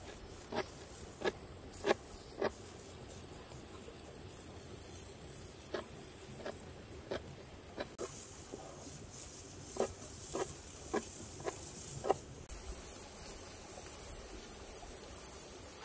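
Irregular light knocks and taps, a few to a second at most, over a steady high-pitched hiss that drops away for a few seconds in the middle.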